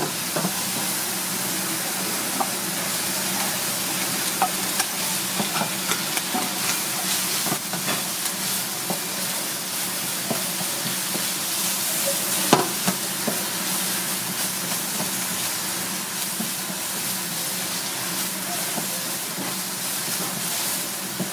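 Shrimp, mushrooms, onion and carrot sizzling steadily in a hot wok as a wooden spatula stirs and tosses them, with scattered clicks and knocks of the spatula against the pan.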